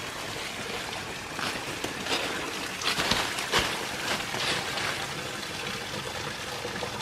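Small waterfall, about 10 to 15 feet tall, splashing steadily into a creek, with a few short crackles or knocks between about one and a half and four and a half seconds in.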